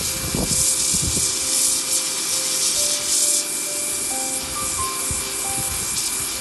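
Pressure washer spraying a jet through its 0-degree tip, a hissing spray that swells and fades in surges, with background music underneath.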